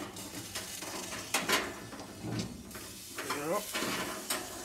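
Metal utensil clicking and knocking against a rotisserie spit and oven rack as sauce is worked onto a roasting rabbit, several separate strikes, with a short rising squeak about three and a half seconds in.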